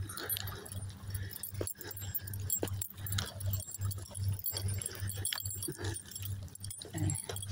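Footsteps crunching on dry beach sand while walking, with irregular clicks from handling the phone. Underneath runs a low, even throb pulsing two or three times a second.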